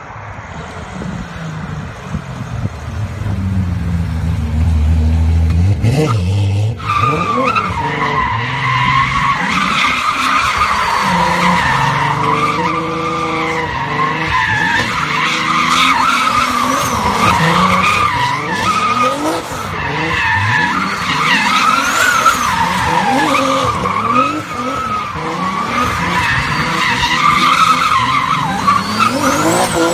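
Turbocharged BMW E36 sedan: the engine note rises as the car comes in. From about seven seconds in it spins donuts, the rear tyres squealing without a break while the engine revs up and down.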